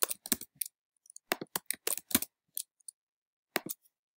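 Typing on a computer keyboard: sharp key clicks in quick clusters, then a pair of clicks near the end.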